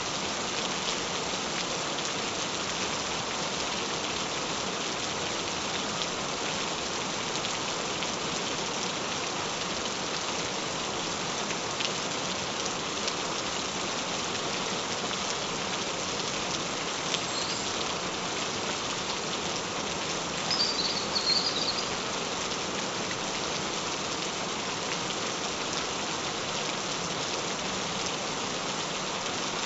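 Steady gentle rain falling on a surface: an even hiss of patter with scattered single drop ticks. About two-thirds of the way in, a short wavering high-pitched sound rises briefly above the rain.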